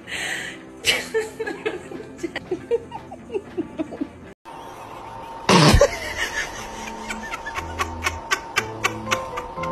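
Canned laughter over light background music, with a brief silent gap about four seconds in and a loud sudden burst shortly after, followed by quick repeated sharp ticks.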